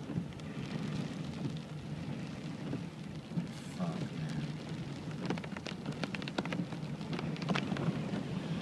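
Heavy rain falling and pattering on a surface over a steady low hum, with a flurry of sharp drop taps in the second half.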